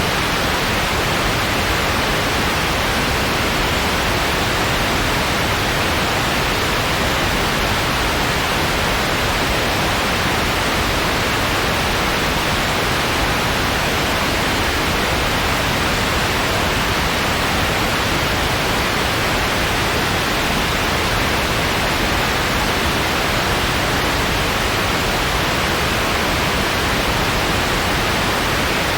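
Steady, even white noise: a continuous hiss that never changes, a little stronger in the upper middle than in the deep lows or the highest treble.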